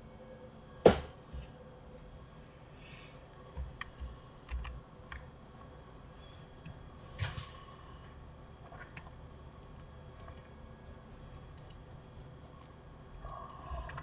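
Scattered clicks of a computer mouse and keyboard, with a sharper knock about a second in and a smaller one around seven seconds, over a faint steady hum.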